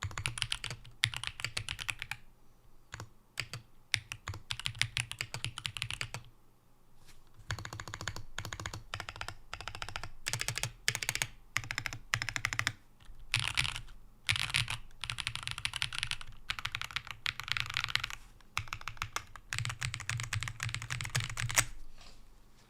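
Typing on a Matrix Vita mechanical keyboard with Gateron Baby Kangaroo tactile switches, an aluminium top-mount plate, PCB foam and GMK Camping keycaps: fast runs of key clacks broken by a couple of short pauses, dying away just before the end.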